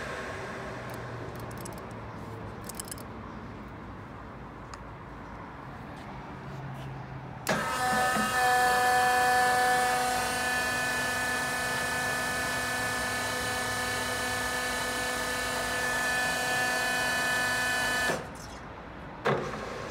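LeBlond Regal servo shift engine lathe: at first a low hum with a few light clicks while the speed dial is set. About seven and a half seconds in, the spindle starts and runs with a steady, many-toned gear whine from the headstock. It stops abruptly near the end, followed by a single clunk.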